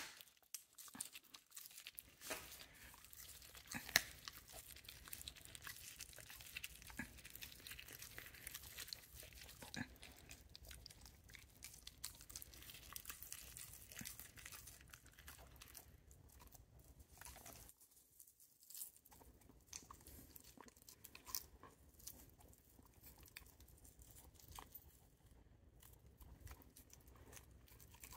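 Dog chewing on a cooked pork rib held out by hand: faint, irregular crunching and tearing with scattered sharp cracks of teeth on bone, the loudest crack about four seconds in, and a short pause about two-thirds of the way through.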